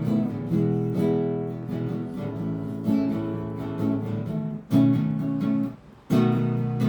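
Background music played on acoustic guitar, with pitched notes changing throughout; it breaks off for a moment near the end, then comes back in.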